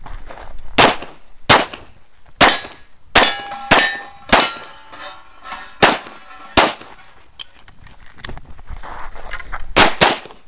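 Pistol shots fired during a practical shooting stage: about ten sharp reports at an uneven pace, with a pause of about three seconds before a quick final pair. Several shots are followed by the ring of struck steel targets.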